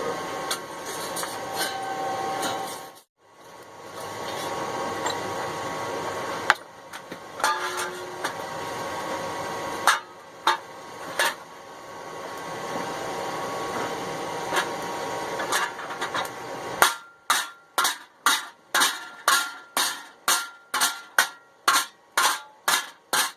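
A forge running with a steady rushing noise and a few scattered hammer taps. Then, about 17 seconds in, a steady run of hammer blows on hot sheet steel at about two a second, bending the scored 16-gauge plate.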